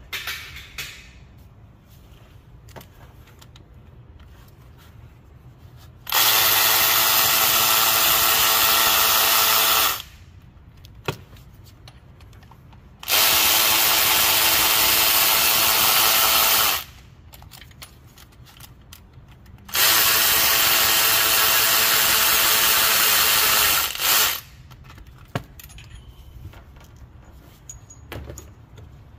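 Snap-on cordless power tool running in three steady bursts of about four seconds each, spinning fasteners on the engine front during a water pump job. There are small metallic clinks in between.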